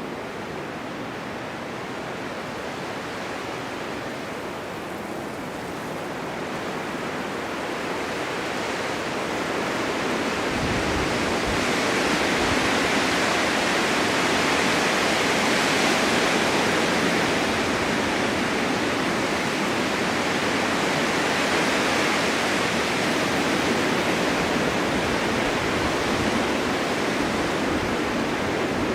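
Blizzard wind blowing snow: a steady rushing that swells into a stronger gust over the first third and stays loud.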